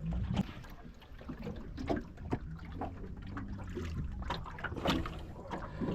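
Water sloshing and trickling, with scattered knocks and clicks, over a steady low hum.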